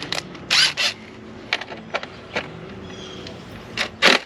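Handling of tools and engine parts: two short rustling scrapes about half a second in, followed by a few scattered clicks, over a faint steady hum.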